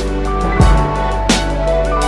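Background music with a steady beat: held instrumental notes over a low bass, with a drum hit about every three-quarters of a second.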